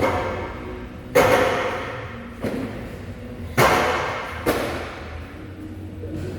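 Gym equipment hitting the floor: four heavy thuds about a second apart, the second one lighter, each trailing off with a long echo in a large hall.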